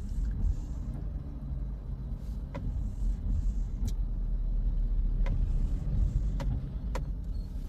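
Honda Grace Hybrid car's low, steady rumble, with a few faint clicks.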